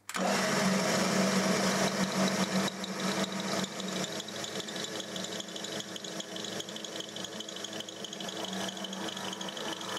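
Drill press motor running with a steady hum and rattle, cutting in abruptly, as its spinning twist bit is lowered onto a model tooth and begins to bore into it.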